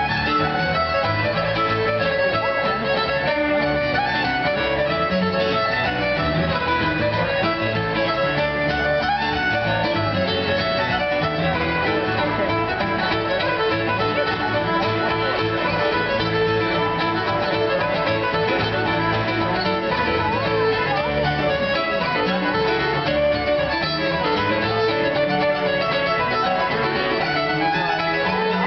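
Lively Cape Breton fiddle tune played on violin, with a Yamaha CP stage piano giving a steady rhythmic chord and bass accompaniment throughout.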